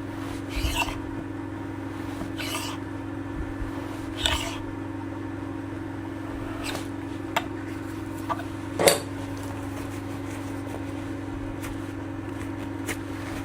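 Steel block plane blade and parts handled: a handful of short, irregular scrapes and metallic clinks, the loudest about two-thirds of the way in, over a steady low hum.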